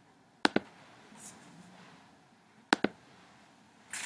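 Two computer mouse clicks about two seconds apart, each heard as a quick double tick of the button pressing and releasing.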